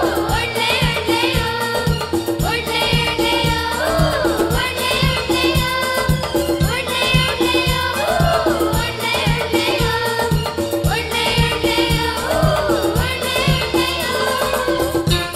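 Children's choir singing a song over music with a steady percussion beat.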